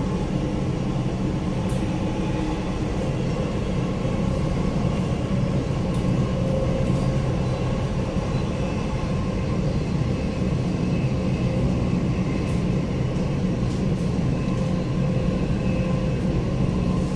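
Dubai Metro train running along the track, heard from inside the carriage: a steady rumble of rolling and running noise with a faint whine above it.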